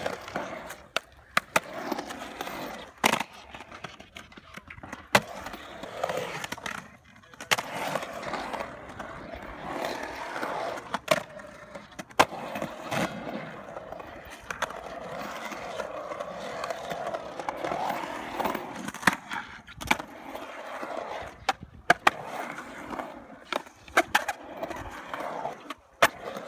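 Skateboard wheels rolling and carving across a concrete bowl, broken by sharp, irregular clacks and knocks of the board and trucks striking the concrete.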